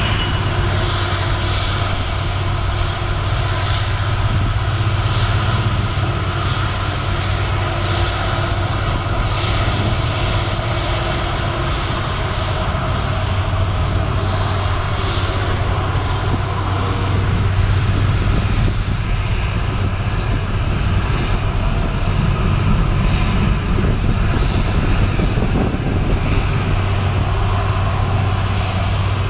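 Airbus A330-300's Rolls-Royce Trent 700 turbofans running at taxi power: a steady jet whine over a deep, even rumble as the airliner rolls along the taxiway.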